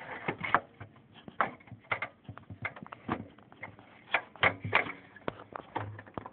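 Irregular clicks, taps and knocks of a PCI video card being handled and worked into a slot inside a desktop computer case.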